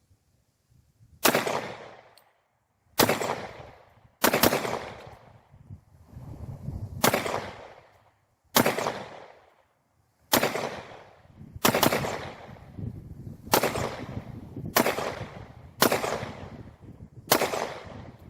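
Pistol shots from a Polymer80-framed Glock 23 clone in .40 S&W, about eleven rounds fired one at a time, roughly one to two seconds apart. Each shot has a fading tail of echo.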